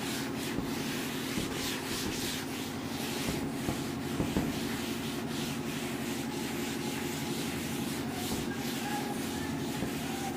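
A cloth duster rubbing chalk off a chalkboard, in repeated wiping strokes.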